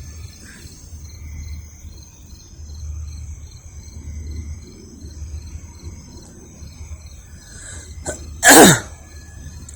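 Crickets chirping in an even, pulsing rhythm over a low steady rumble. Near the end a person makes one loud, short vocal burst that falls in pitch, like a sneeze.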